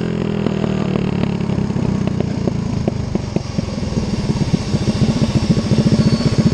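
Mini bike's single-cylinder Predator 212 engine running at speed, then about halfway through dropping to a slower, uneven pulsing as the bike slows, with wind rushing past.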